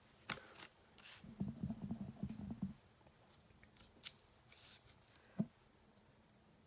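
Crackle-pattern rubber stamp on a clear acrylic block being handled and pressed down onto a paper postcard on a craft mat. There are a few light clicks, then about a second of rapid low rubbing knocks as the block is pressed and worked, and a sharp tap near the end.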